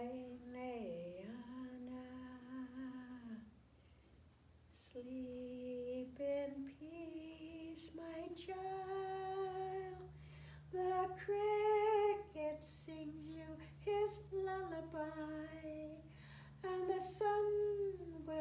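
A woman singing alone and unaccompanied: a slow melody of long held notes that glide between pitches, with a short pause about three and a half seconds in.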